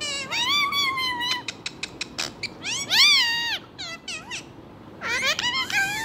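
Ring-necked parakeet making three drawn-out cat-like meows, each rising then falling in pitch, the middle one the loudest, with sharp clicks in between.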